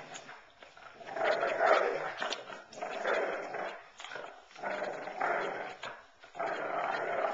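Dog growling in play while tugging on a rope toy: a run of rough growls, each about a second long, with short breaks between them.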